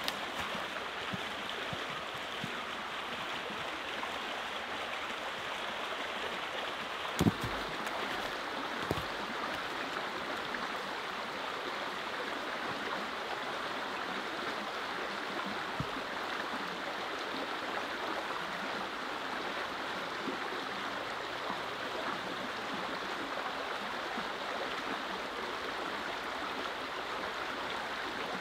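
Small woodland stream flowing, a steady rush of running water. A single sharp knock about seven seconds in, with a couple of fainter clicks later.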